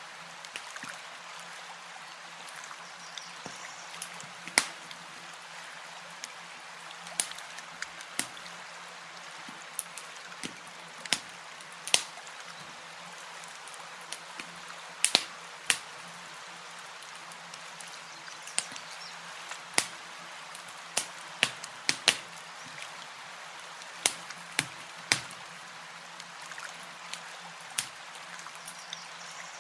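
Campfire crackling: irregular sharp pops and snaps, several a few seconds apart and some in quick pairs, over a steady hiss.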